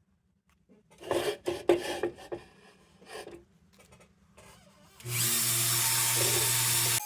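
A few irregular hand scraping or rubbing strokes on the lantern's metal, then about five seconds in a power tool's electric motor starts and runs steadily with a steady hum.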